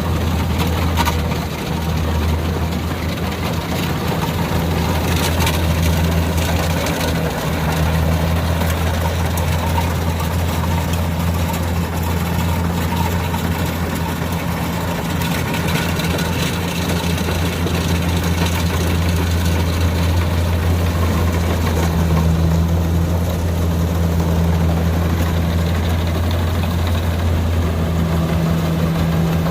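Kubota DC60 combine harvester's diesel engine running steadily, with a low, even hum under a constant mechanical clatter.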